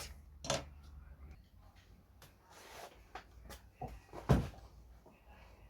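Scattered light knocks and clicks of small parts and tools being handled and set down on a workbench, with a brief soft rustle and one louder knock about four seconds in.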